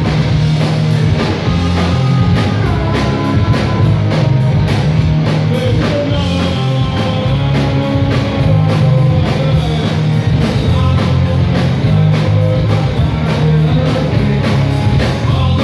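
Live rock band playing loud and full: drum kit with steady cymbal strokes, bass and electric guitar, on the club's stage PA during a sound-check run-through.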